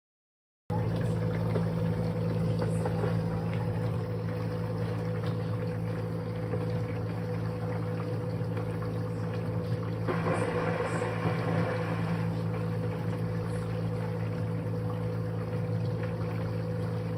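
Portable countertop dishwasher running: the steady hum of its wash pump motor with water spraying inside. The spray grows louder for about two seconds past the middle.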